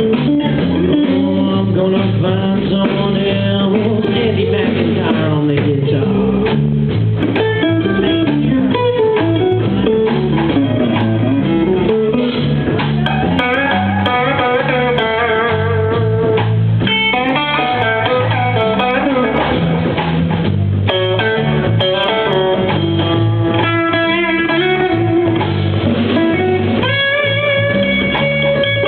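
Live blues band playing: a lead guitar line with bent notes over bass.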